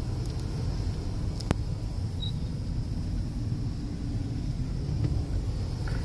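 Car driving on a highway, heard from inside the cabin: a steady low rumble of road and engine noise, with one sharp click about one and a half seconds in.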